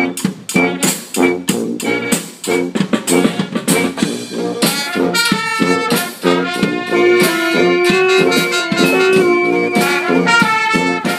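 Brass marching band playing: sousaphones, trumpets and trombones over a steady bass drum beat. About five seconds in, the horns move into longer held notes.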